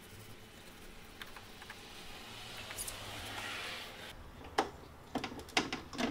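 Faint rubbing on the car's bodywork as the area around the trunk-lock opening beside the taillight is wiped clean. It swells and then stops. Then come a few sharp clicks and knocks of plastic trim being handled at the open trunk lid.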